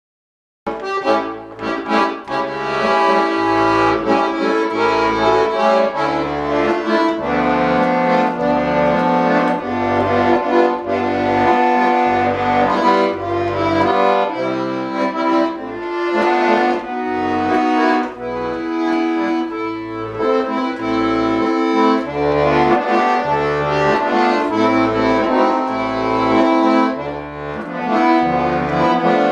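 Bayan (Russian button accordion) playing a slow instrumental introduction: a melody over a bass accompaniment of repeated low notes. It starts about a second in.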